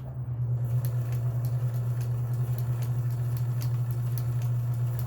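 Kenmore 158.1781 sewing machine sewing a pattern stitch: a steady motor hum with the needle clicking quickly and evenly, picking up speed about a third of a second in.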